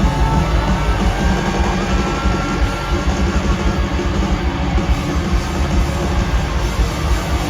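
Rock band playing loudly with distorted electric guitars and a drum kit, a held guitar line ringing over the dense low end.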